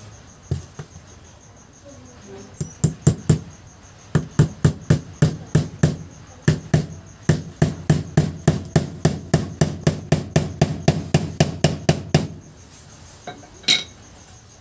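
Hammer tapping a nail set through a small plastic pump impeller into a wooden block: a short run of four strikes, then a long steady run of about two to three strikes a second that stops a couple of seconds before the end, and one lone knock near the end.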